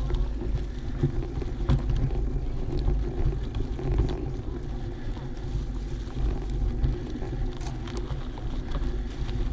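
Wind rumbling on the microphone while riding, over mountain bike tyres rolling on a dirt trail, with scattered small clicks and rattles.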